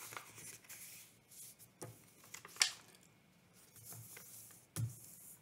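A sheet of letter-size paper rustling and crackling as it is folded by hand, its edge brought up and the fold creased flat, with a few sharper crackles.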